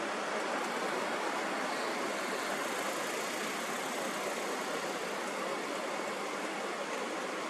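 Steady, even rushing noise with no beat, tone or change in level.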